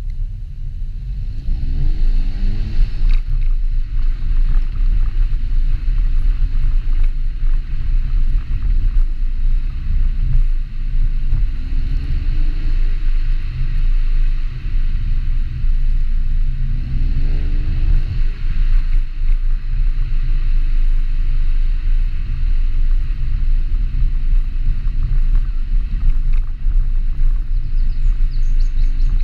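Volkswagen Golf GTI Mk7 facelift's 2.0-litre turbocharged four-cylinder engine and exhaust while driving, over a heavy low rumble. Three times the engine note climbs in pitch under acceleration: about two, twelve and seventeen seconds in.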